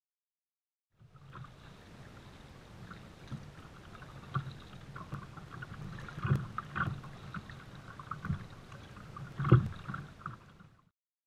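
Double-bladed kayak paddle strokes splashing in choppy water, with water sloshing against the hull; irregular louder splashes every second or two, the loudest near the end. The sound starts about a second in and cuts off suddenly.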